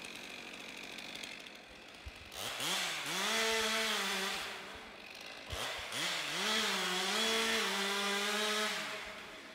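Husqvarna 550 XP two-stroke chainsaw revved up twice, each time rising to a steady high speed for a few seconds and then dropping back.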